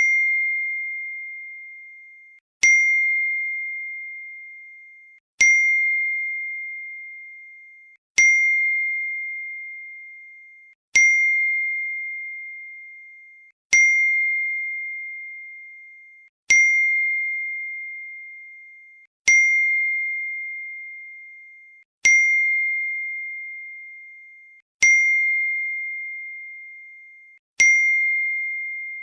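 iPhone message notification chime repeating: a single bell-like ding about every 2.8 seconds, each a sharp strike that rings on one steady tone and fades away just before the next.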